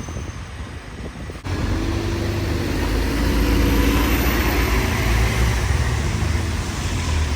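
A bus running close by, a loud, steady low rumble that starts abruptly about 1.5 s in.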